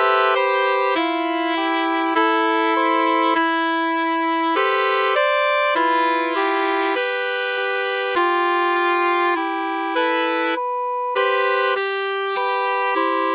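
Instrumental background music: sustained keyboard-like chords that change every half second to a second, with no drums and no voice.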